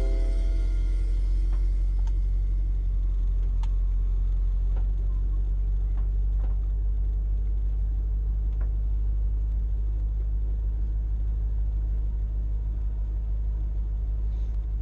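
A 1955 car's engine running at low speed with a steady low rumble as the car creeps along. The last notes of ukulele music die away in the first second.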